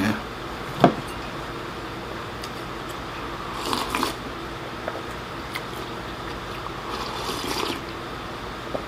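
Soup slurped from a bowl, once about four seconds in and again near the end, after a single sharp click about a second in.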